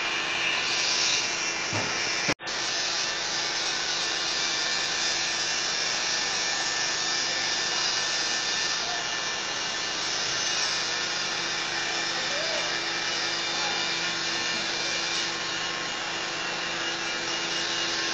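Shielded metal arc (stick) welding on carbon steel pipe: the electrode arc gives a steady crackling hiss, with a steady low hum beneath it. About two seconds in there is a sharp click and a momentary cut-out, then the arc carries on.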